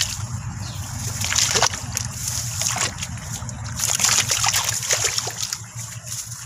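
Farmed frogs hopping out of shallow rice-paddy water onto mud and grass, giving a series of small splashes and rustles over a steady low rumble.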